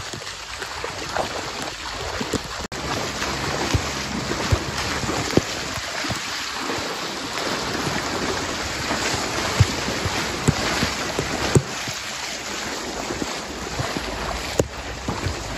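Steady rush of fast-flowing flash-flood water mixed with wind on the microphone, with a few scattered sharp ticks.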